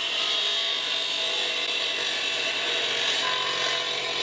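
iQ dry-cut masonry saw running steadily with its onboard dust vacuum: a continuous, even whine over a hiss.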